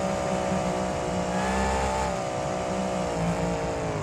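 Vehicle engine sound effect for a toy monster truck: an engine running steadily at a high idle, its pitch sagging slightly near the end.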